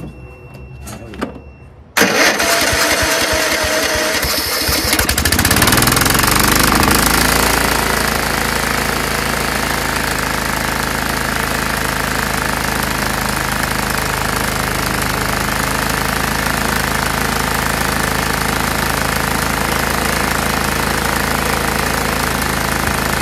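Scotts by Murray 1542 lawn tractor engine cranked by its electric starter for about three seconds, then catching, revving up and settling into steady running. It fires on a shot of spray blown into the carburetor intake with the air cleaner off, after sitting unused with a dirty carburetor.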